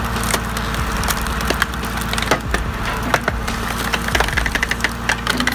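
Hydraulic wood splitter running steadily, with many sharp cracks and snaps of logs being split into firewood and pieces knocking together.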